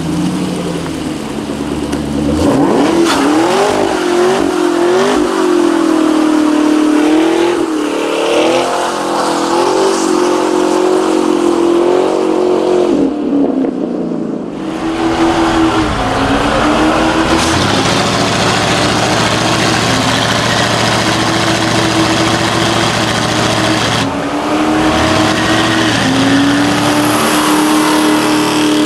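A muscle car's V8 revving hard during a burnout, over the hiss of spinning tyres. For the first several seconds the revs rise and fall; there is a short dip about halfway through, and then the engine holds high and steady.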